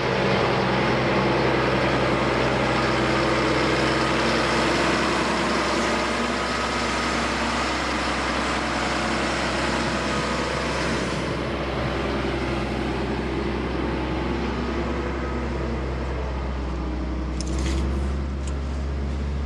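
Engine of heavy earthmoving equipment, such as a hauling truck, running steadily, its low hum growing stronger near the end.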